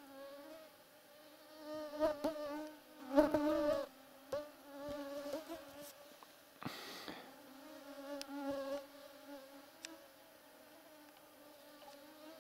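A flying insect buzzing steadily, its pitch wavering slightly. A few faint knocks and a short noisy burst about two-thirds through come over it.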